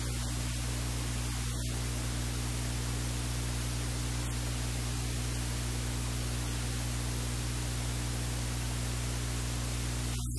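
Steady electrical hum with a constant hiss over it, unchanging throughout: the noise of the recording itself. No cooking sounds stand out above it.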